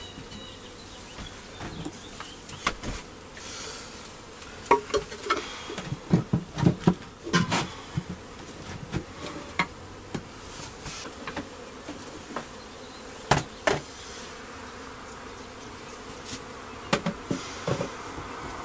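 Honeybees buzzing around an opened wooden hive, broken by irregular sharp wooden knocks and clatter as hive boxes and frames are handled and set down, thickest in a cluster around the middle.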